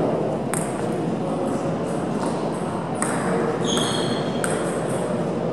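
Table tennis balls ticking off tables and bats, a handful of sharp scattered ticks, some with a brief high ring, over the steady hum of a large sports hall.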